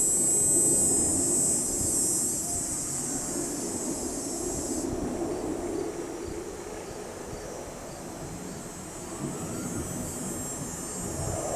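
Distant jet aircraft rumbling in the sky, a steady low drone that dips and swells again near the end. A high steady buzz sits above it and cuts off suddenly about five seconds in.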